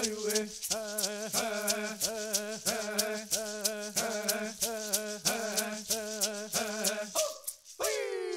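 Chanted song: a voice holding wavering notes over a shaken rattle beating steadily about three times a second. The song stops about seven seconds in, and near the end a new sound with a falling pitch glide begins.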